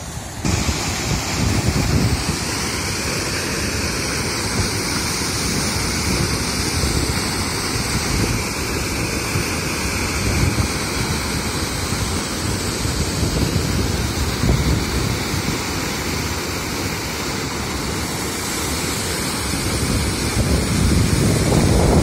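Waterfall cascading over rock ledges into a pool: a steady rush of falling water, growing louder near the end.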